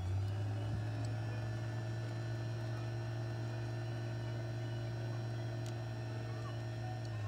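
A steady low electrical hum, with faint higher tones above it, at an even level throughout; it cuts off suddenly at the end.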